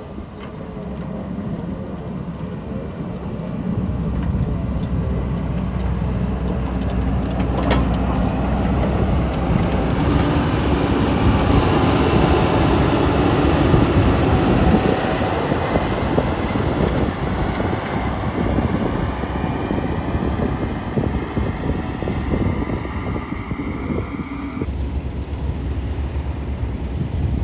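Heavy diesel excavator engine working under load, growing louder over the first dozen seconds with its pitch shifting as it works, then changing abruptly near the end.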